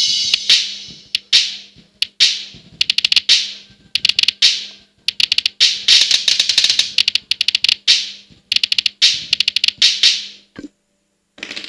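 Drum-pad app's cymbal crashes and quick rolls of drum hits, heard through a Baseus Bowie E3 true wireless earbud held against a microphone. Each hit is triggered by a finger tap on the phone screen as a latency test. The crashes ring out and fade between taps, and a faint steady hum underneath stops shortly before the end.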